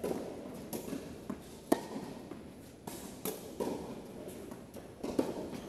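Tennis rally on a hard court: a series of sharp pops from rackets striking the ball and the ball bouncing, about a second apart, the loudest a little under two seconds in, with shoe steps between.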